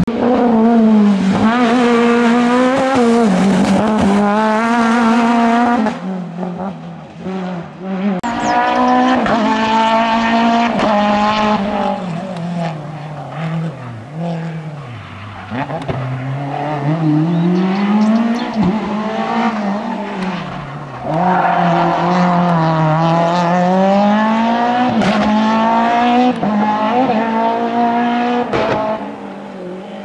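F2000-class rally car engine, naturally aspirated, revving hard at full throttle. Its pitch climbs through the gears several times, dropping back at each shift and each lift for the bends.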